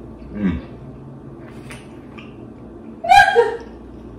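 A man's wordless vocal reactions while tasting food: a brief falling hum about half a second in, then a louder, higher-pitched exclamation about three seconds in.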